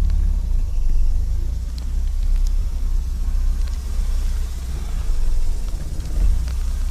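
Low, steady rumble of a car driving slowly over a rough, muddy dirt road, heard from inside the cabin, with a few faint knocks and rattles.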